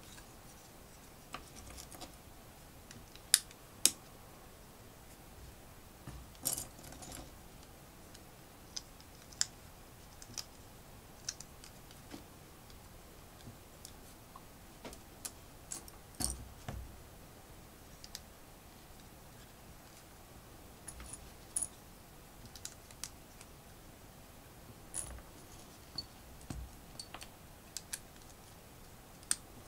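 Plastic LEGO pieces clicking as they are pressed together and handled, with irregular single clicks and a few short rattles as pieces are picked through. Two sharp, louder clicks come close together about three seconds in.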